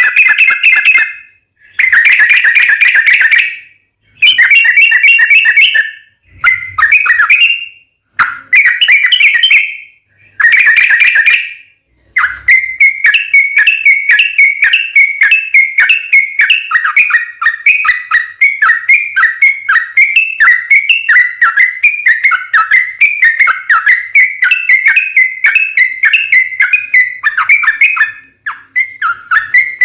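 Yellow-vented bulbul (trucukan) song played loud from a lure recording. First come short bubbling phrases with pauses of about half a second to a second between them. From about twelve seconds in it becomes a long, unbroken run of rapid chattering notes, several a second, the long trill ('ropel panjang') used to draw wild bulbuls to answer, with a brief break near the end.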